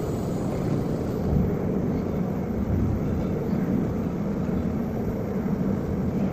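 Industrial machinery running with a steady, even rumble, as of a water heater tank enamel coating machine in operation.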